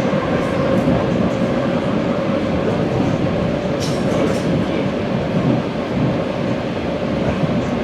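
ED4M electric multiple unit running between stations, heard from inside the car: a steady rumble of wheels on track with a constant hum, and a few brief high clicks about four seconds in.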